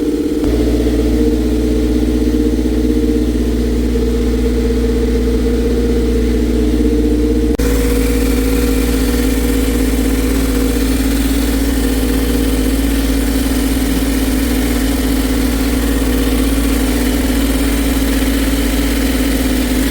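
Toyota MR2 Spyder's 1.8-litre four-cylinder engine idling steadily through a catless test pipe, with no exhaust leak at the manifold-to-downpipe joint, which has been resealed with a Remflex gasket. The tone shifts abruptly about seven and a half seconds in.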